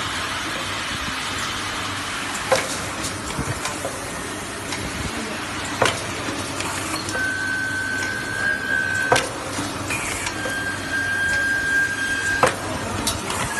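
Screen printing machine for rulers cycling: a sharp clack about every three seconds over a steady mechanical hiss, with a steady high whine between the clacks in the second half.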